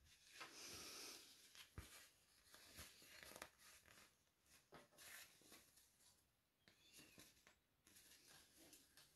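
Faint, irregular rustling of a polyester Adidas football jersey being handled and turned over, with a few soft clicks.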